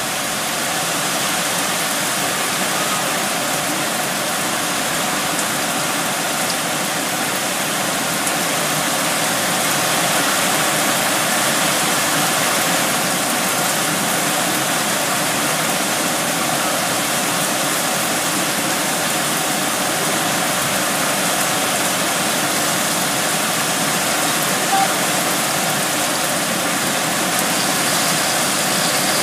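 Heavy rainstorm: a steady, dense hiss of pouring rain.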